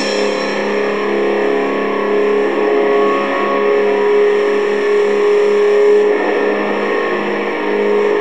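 Distorted electric guitar holding a droning, buzzing chord without drums, in a raw lo-fi black metal demo recording.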